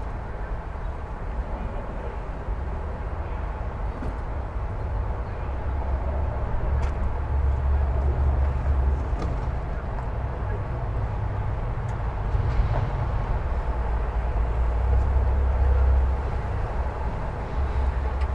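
Steady traffic noise from a nearby freeway: a constant wash of vehicles with a low rumble that swells a few times as heavier vehicles pass.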